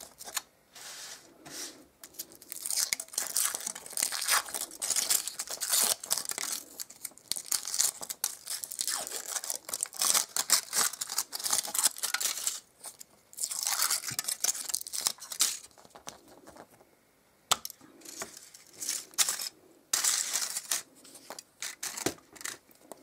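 Thin foil wrapper of a chocolate surprise egg being peeled and crinkled by hand, in irregular crackly bursts with short pauses. There is one sharp click about two-thirds of the way through.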